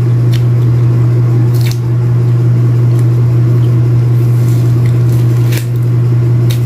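A loud, steady low hum, over which pomelo pulp and membrane squish and crackle faintly as the fruit is pulled apart by hand.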